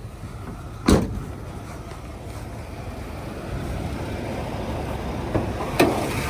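Dodge D150 pickup engine idling with a steady low rumble, and the truck running as it should. A single loud sharp knock about a second in, and two lighter knocks near the end.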